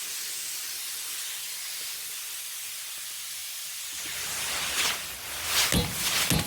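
A steady hiss. About four seconds in, a low rumble joins it, along with several sharp knocks.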